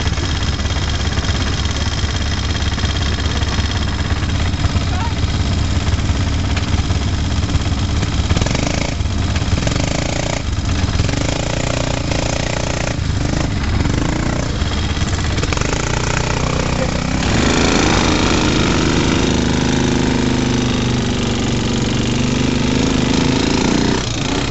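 Quad bike (ATV) engine running at low revs while the machine crawls along a rough, muddy trail. About two-thirds of the way in it gets louder and its note rises and holds higher as the bike speeds up.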